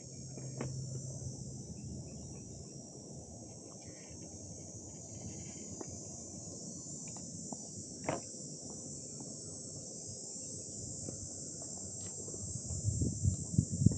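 Insects chirring in a steady, high, continuous chorus, with a few faint clicks. A run of low thumps near the end.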